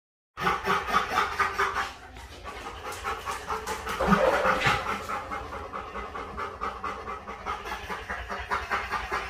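Dog panting rapidly, four or five breaths a second, louder for the first couple of seconds and then softer.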